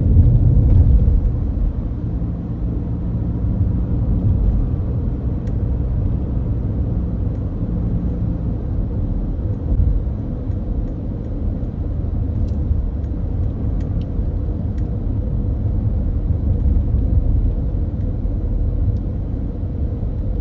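Steady low road rumble of a moving car, engine and tyre noise heard from inside the cabin, a little louder for the first second.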